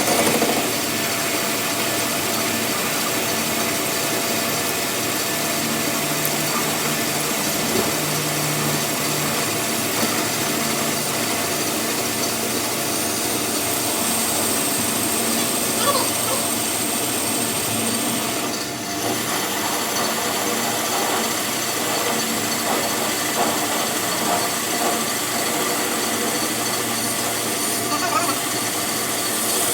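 Workshop machine or power tool running steadily with a constant hum, with a few faint clicks on top.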